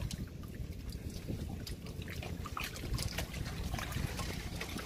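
Wind buffeting the microphone over choppy river water, with a steady low rumble and many small scattered clicks and knocks.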